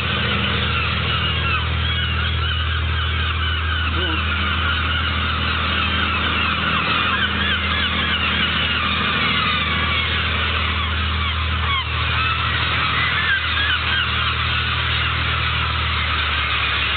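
A large flock of gulls calling constantly, many overlapping cries at once, over the steady low hum of a fishing boat's engine, which fades near the end.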